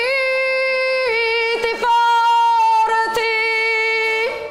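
A woman singing a folk ballad in long, drawn-out notes that step from one pitch to the next, with a few guitar strums under the voice.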